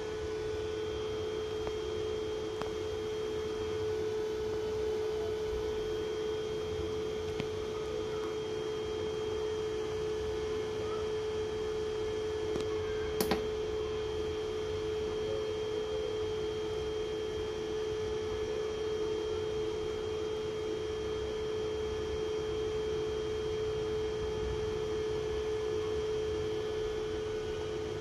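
Steady electrical hum from the home solar power gear, one unchanging mid-pitched tone, while the MPPT charge controller charges the 24 V battery bank at about 51 amps. A single sharp click about 13 seconds in.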